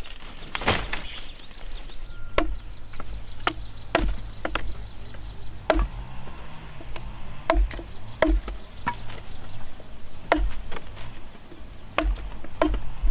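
Machete chopping cassava stems into short planting cuttings against a wooden log: sharp, irregularly spaced chops, about one a second.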